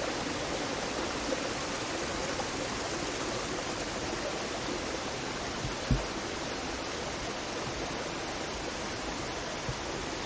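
Waterfall rushing steadily, with a single dull thump about six seconds in.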